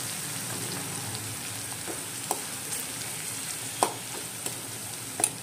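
Tomatoes, green chillies and spices sizzling in hot oil in a stainless steel pot, left to cook until the tomatoes soften. A few sharp clicks break the steady sizzle, the loudest two in the second half.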